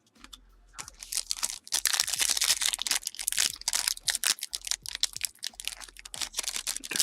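Trading-card pack wrapper crinkling and tearing while cards are handled, a dense rapid run of crinkles and clicks starting about a second in.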